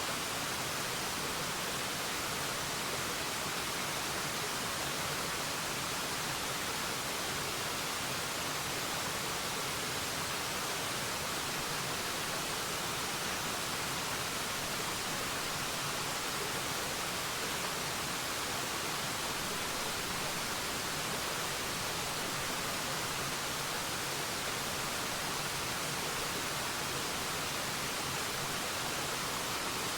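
Waterfall: a steady, even rush of falling water with a hissy, bright character and no distinct splashes or changes.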